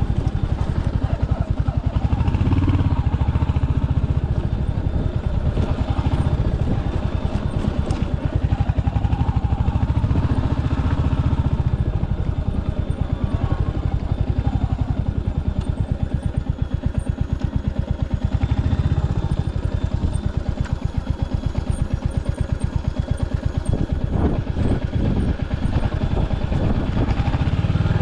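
Royal Enfield Hunter 350's single-cylinder engine running under way, its beat swelling and easing with the throttle. A few short knocks come near the end.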